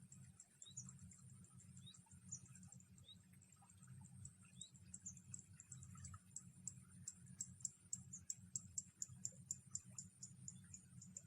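Faint outdoor wildlife: small birds giving short high chirps over a steady, very high insect tone, with a run of quick high ticks, about four a second, that grows louder from about halfway through.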